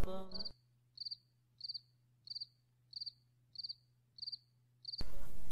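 Cricket chirping steadily, about three chirps every two seconds, each chirp a quick run of pulses. The chanting voices fade out just at the start, and the next chant comes in near the end.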